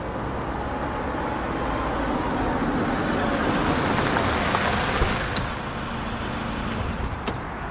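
A sedan drives up and comes to a stop, its engine and tyre noise swelling as it approaches and easing off as it halts. A few short clicks follow near the end.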